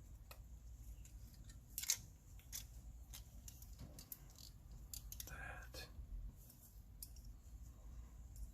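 Small, irregular clicks and taps of diecast model car parts being handled and fitted back together by hand, with one sharper click about two seconds in.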